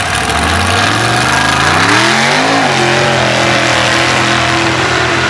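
Mega truck's engine revving hard as it launches into a mud bog run. The pitch climbs for about two seconds, drops suddenly, then holds high and steady while the tyres throw mud.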